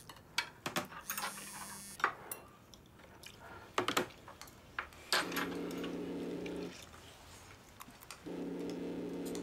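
Spoons and tableware clinking and tapping against bowls at a dinner table. Two steady low hums, each about a second and a half long, sound in the second half.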